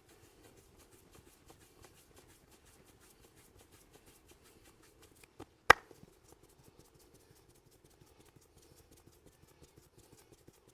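Hands working a head massage: a quick, even run of soft light taps. A little past halfway there is one sharp, loud crack.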